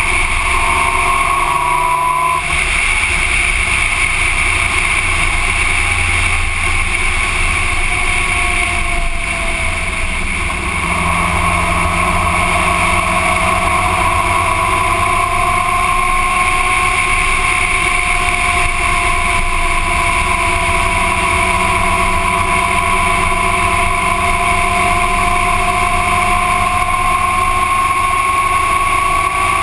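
Motorcycle running at road speed, its engine whine drifting slowly up and down in pitch with a short dip in loudness about ten seconds in.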